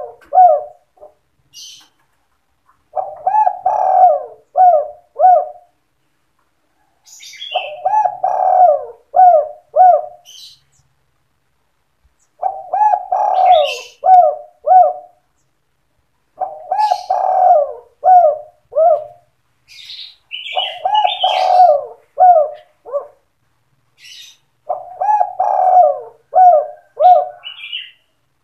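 Spotted dove (tekukur) cooing in the 'sandung kuk 2' style: about seven repeated phrases, each a run of several low coos lasting two to three seconds, coming every four to five seconds. This is a male's song of the kind used as a lure call to draw other tekukur.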